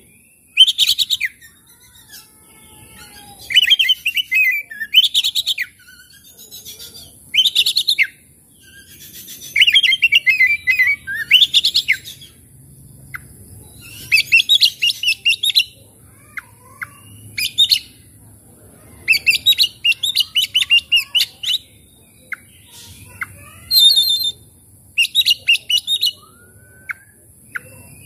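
Oriental magpie-robin singing in full song: loud phrases of rapid chattering notes, each about a second long, repeated with short pauses, and a few thin rising whistles near the end.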